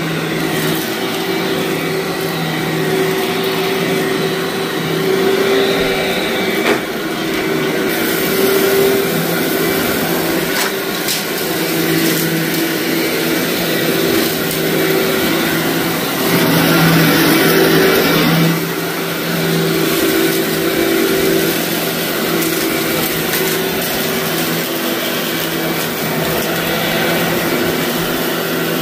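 Vacuum cleaner running steadily over a heavily soiled carpet, with crunching and crackling as gritty debris is sucked up. The motor gets briefly louder and harsher about two-thirds of the way in.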